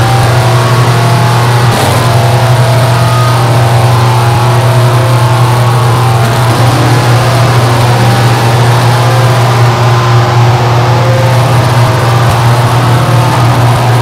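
Harsh noise recording: a loud, unchanging wall of dense distorted static over a heavy steady low drone, with no rhythm or breaks.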